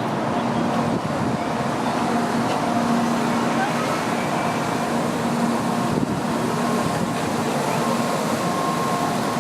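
A Shinkansen train running on the Hamamatsu works access line: a steady rumble with a few held hum tones, growing a little louder.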